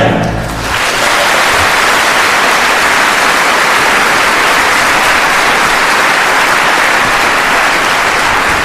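Large theatre audience applauding, steady and loud. The orchestra's final chord cuts off within the first second.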